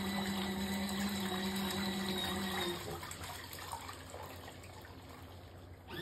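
Small collapsible mini washing machine running: its motor hums steadily while the impeller churns the water in the tub. About three seconds in the motor stops, as in the pause of a wash cycle, and the water keeps sloshing more and more faintly.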